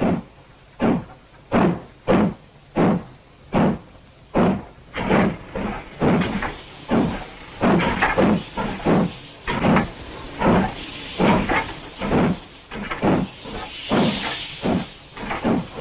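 Steam locomotive working hard, its exhaust chuffing in a steady beat of about one and a half a second. From about five seconds in the beats come quicker and run closer together, and a hiss of steam rises near the end.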